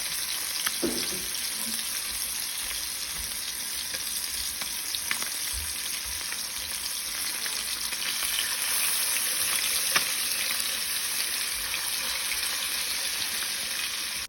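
Yellow bass and catfish pieces frying in hot oil: a steady sizzle with scattered small pops and crackles.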